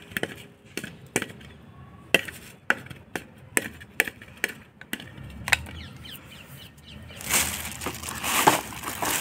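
Small red plastic toy bat repeatedly hitting a plastic ball hung in a mesh net: a string of sharp hollow taps, about two or three a second, for the first five seconds. Near the end a rustling noise takes over.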